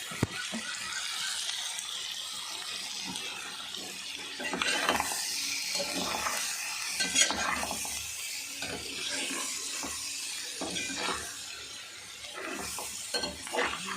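A spoon stirring and scraping a pan of frying onion masala just dusted with chili powder. The food sizzles steadily, and the spoon clinks against the pan now and then.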